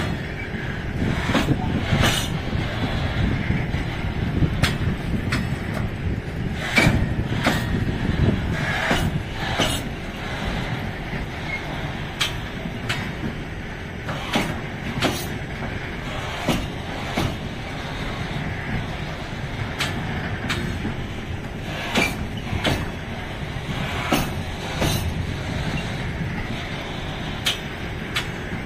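Container flat wagons of a freight train rolling past: a steady rumble of wheels on the rails, broken by sharp, irregular clacks as the wheels pass over the rail joints.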